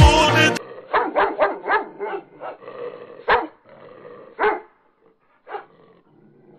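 Music cuts off just after the start, then a dog barks. First comes a quick run of short barks, then two louder single barks, about three and four and a half seconds in, and a fainter one after them.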